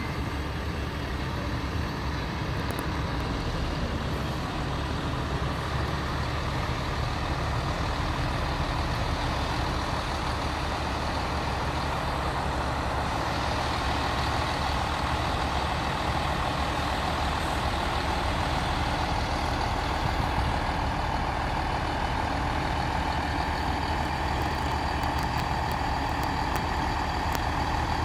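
Class 158 diesel multiple unit's underfloor diesel engines running steadily as the train moves slowly through the station. A steady whine grows stronger from about halfway through.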